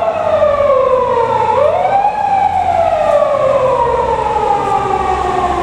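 Japanese police car siren wailing. The pitch drops, sweeps back up about a second and a half in, then falls slowly and evenly, over a low vehicle rumble.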